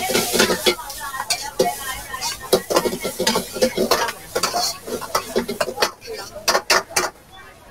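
Metal ladle scraping and clanking in a wok during stir-frying, with sizzling underneath. Near the end come a few sharp knocks of the ladle on the wok before the stirring stops.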